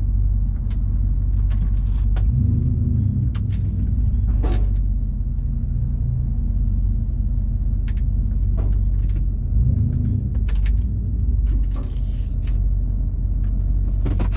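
The cammed V8 of a 2013 Chevrolet Silverado, with a Stage 2 BTR cam and catalytic converters deleted, idling steadily as heard from inside the cab. The engine note swells briefly twice, about two and a half seconds in and again near ten seconds.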